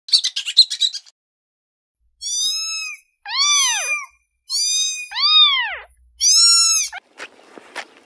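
A kitten mewing four times in high, thin calls, some rising and then falling in pitch. They follow a quick burst of rapid high chirps in the first second.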